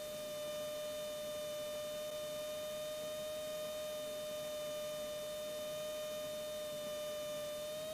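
Steady electrical whine in the cockpit audio feed: one tone with its overtones, rising slightly in pitch near the end.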